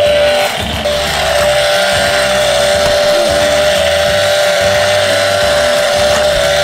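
Battery-powered Husqvarna toy chainsaw playing its electronic engine-running sound: a steady, buzzy motor loop with a fixed hum. It cuts out briefly under a second in, then starts again.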